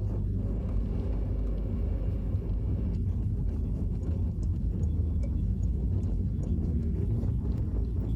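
Steady low rumble inside the cabin of a Peugeot 308 with the 1.6 HDi four-cylinder diesel (DV6FC), driving slowly in town in fourth gear at low revs, mixed with tyre and road noise from winter tyres on a slushy road.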